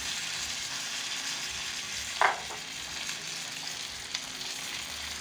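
Whole tilapia frying in melted butter on a hot sizzling plate: a steady sizzle. A brief knock sounds about two seconds in.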